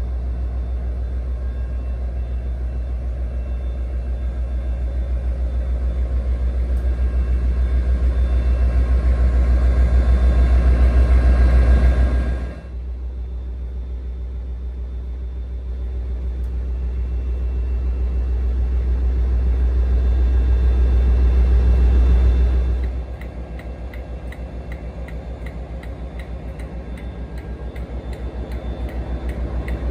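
Class 57/3 diesel-electric locomotive's EMD 645 V12 two-stroke engine idling while the locomotive stands at the platform, a steady deep rumble heard close up beside the bodyside. The level swells and then drops suddenly twice, a little before halfway and about three-quarters of the way through.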